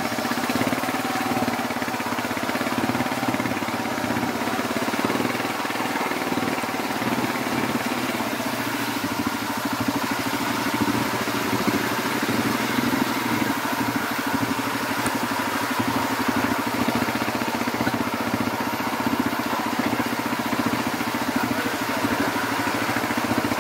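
ATV (quad bike) engine running at a steady pace under way, with a fast even firing rhythm and no revving up or down.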